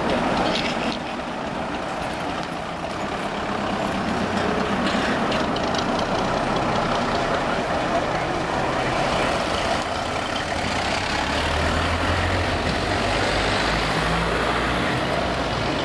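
Diesel engine of a classic open-top double-decker bus as it drives past and pulls away, its deep note growing stronger about eleven seconds in.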